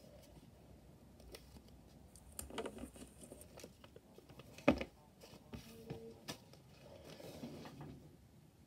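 Sticky notes and bits of paper being handled and shuffled, with light rustling and small clicks, and one sharp knock about halfway through.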